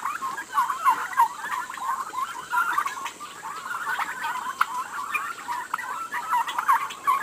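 A flock of young turkey poults calling continuously, with many short, overlapping calls.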